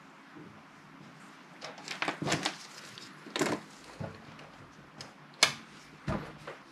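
Handling noise from a bench power supply: rustling and a string of irregular knocks and clicks as gloved hands grip the case and work the knobs and test leads at the output terminals. The sharpest click comes about five seconds in.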